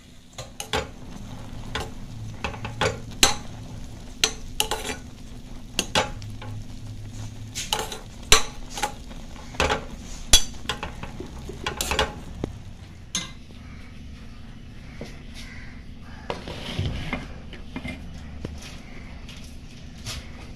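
A spoon stirring a bubbling green bean curry in a metal pan, clinking and scraping repeatedly against the pan. After about 13 seconds the clinks thin out, leaving the soft bubbling of the simmering curry.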